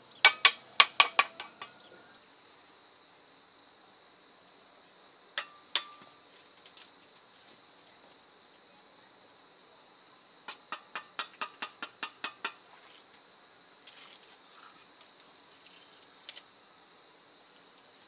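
Mason's trowel tapping bricks into their mortar bed: sharp metallic taps in quick runs of about four a second, the first run at the start and another about ten seconds in, with a few single taps between. A steady high insect buzz runs underneath.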